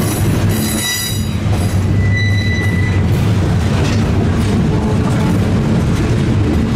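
Double-stack intermodal freight train's well cars rolling past with a steady low rumble of steel wheels on rail. Short high-pitched wheel squeals come about a second in and again around two seconds in.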